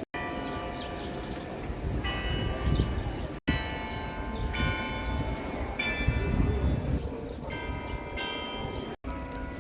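Carillon bells playing a tune: bells struck one after another, each ringing on with its overtones, over a low city rumble. The sound drops out briefly twice.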